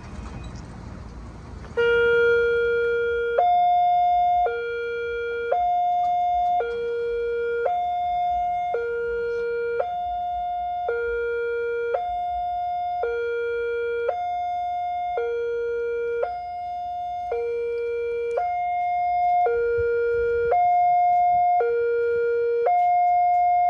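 Railway level-crossing warning siren starting about two seconds in: an electronic hi-lo alarm alternating a lower and a higher tone, each about a second long, repeating steadily. It warns that a train is approaching the crossing.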